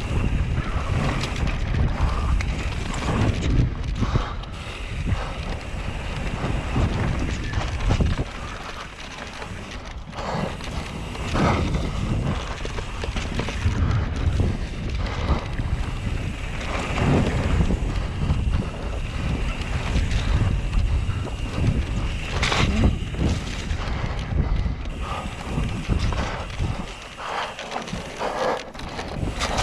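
Wind buffeting the microphone and tyres running over a dirt trail on a mountain-bike descent, with frequent short knocks and rattles from the bike over bumps.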